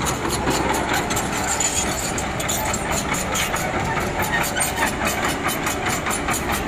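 Komatsu PC120 excavator's diesel engine running under load while its hydraulic breaker hammers concrete, a rapid, even clatter of blows several times a second that grows distinct a little over a second in.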